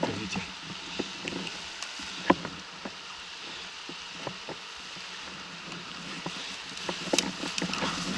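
Fast-flowing river rushing steadily, with scattered clicks and snaps of brush and gear, which come more often near the end.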